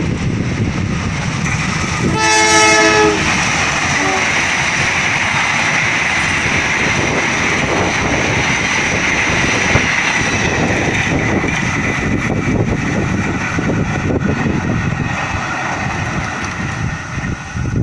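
Locomotive-hauled passenger train passing through a station: a short horn blast about two seconds in, then the steady rumble and wheel noise of the train running past.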